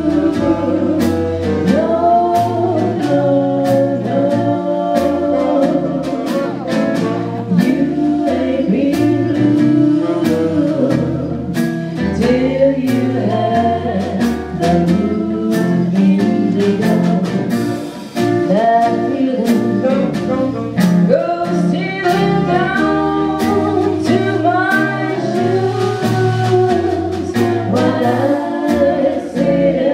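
Three women singing swing-style close harmony, backed by a steady beat on a snare drum and a strummed acoustic guitar.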